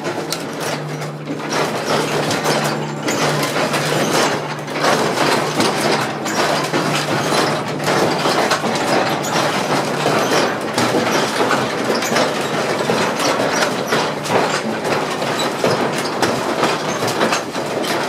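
Church bells rung by hand, heard from inside the belfry: several bronze bells swinging and clanging at close range, their strikes running together into a loud, dense clatter, with a low steady hum under it for the first few seconds.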